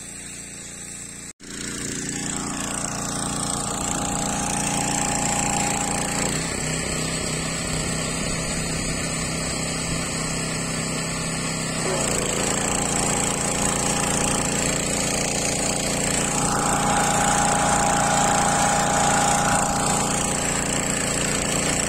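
A small engine or motor running steadily, its tone shifting a couple of times; it starts after a brief cut about a second in.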